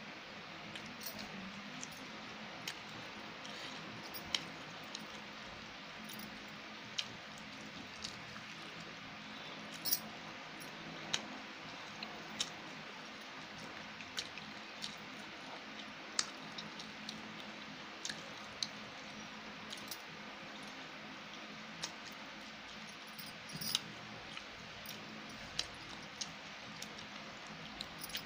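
Eating chicken curry with rice by hand from a metal plate: soft wet squishing of fingers in the curry, with short sharp clicks and clinks at irregular intervals, roughly one a second.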